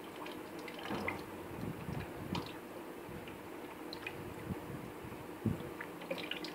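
Water trickling out through a thin tube into a plastic bucket as a plastic-bottle test tank is drained to lower its level, with scattered drips and small knocks.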